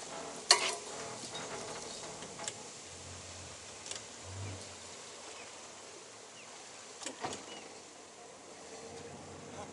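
Yamaha outboard motor running at low speed, a faint low hum that swells and fades, with a few scattered clicks and knocks.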